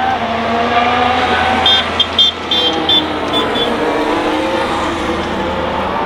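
2022 Formula 1 car's 1.6-litre turbocharged V6 hybrid engine heard at a distance, its note falling and rising as it laps the circuit's final sector. A short series of sharp pops comes about two to three seconds in.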